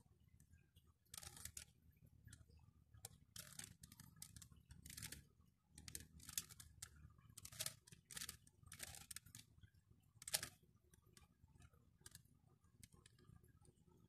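Faint plastic clicking of a 3x3 Rubik's cube's layers being turned by hand, in irregular short runs of quick turns with brief pauses between them. The sharpest clack comes about three-quarters of the way through.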